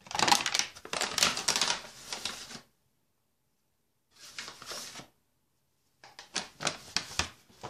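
Flour being added to soft cottage-cheese dough by hand: a dense run of rapid clicking and rustling for over two seconds, a short soft rustle about four seconds in, then hands pressing the dough on the tabletop with light knocks near the end.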